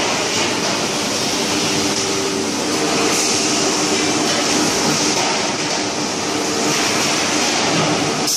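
Steady din of steel drum production-line machinery running, with a low hum through it.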